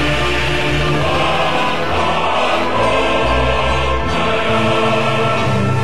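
Music with a choir singing held notes over a low bass.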